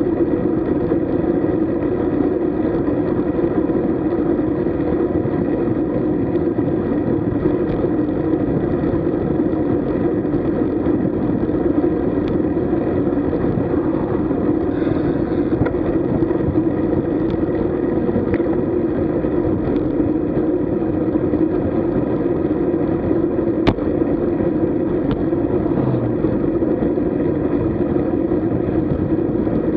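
Steady rush of wind and road noise from a road bicycle under way, the wind buffeting the microphone. There is one brief click about two-thirds of the way through.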